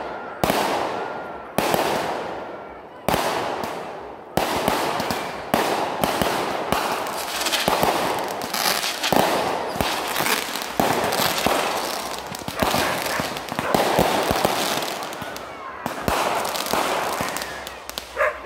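Fireworks going off in quick succession: a sharp bang every second or so, each trailing off in a fading crackle.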